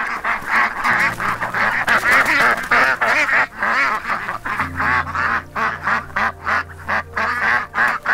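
A brood of Egyptian goose goslings peeping rapidly and continuously, many short calls overlapping.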